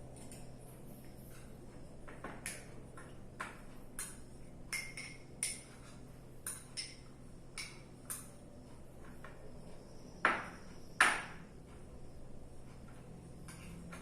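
Kitchen utensils clinking and tapping as a crushed small-onion and hot-water mixture is strained through a filter: a scatter of light clinks, some ringing briefly, with two louder knocks about ten and eleven seconds in.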